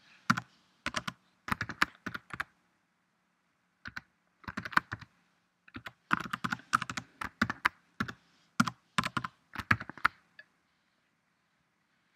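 Typing on a computer keyboard: quick bursts of key clicks separated by pauses of a second or so, stopping shortly before the end.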